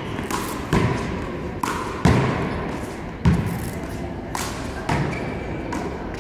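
One-wall handball rally: the small rubber ball smacking off the players' hands, the front wall and the court floor, about eight sharp hits in quick succession, the loudest about two and three seconds in.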